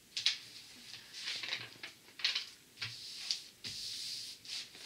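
Hands rubbing and pressing down the protective paper sheet on a diamond painting canvas, making a series of short paper rustles as it is smoothed flat.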